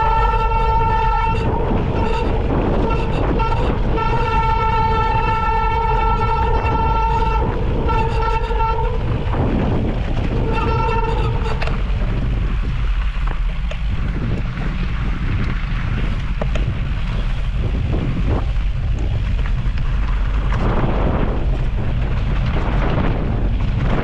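Bicycle disc brake with SRAM Centerline rotors squealing: a steady high-pitched tone held in several long stretches, on and off through roughly the first twelve seconds. After that the squeal stops and only a low rumbling rush of riding and wind noise remains.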